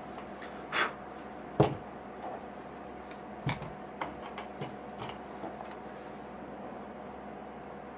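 A leather dress shoe set down on the bench with a single sharp knock, after a brief soft rustle of handling. A few light taps and clicks follow as the shoe and cotton wool are handled, over a steady low hum.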